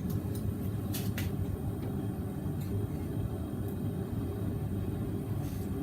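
A steady low rumble, with a few light metal clicks about a second in as a square mild-steel bar is twisted around in a post leg vise.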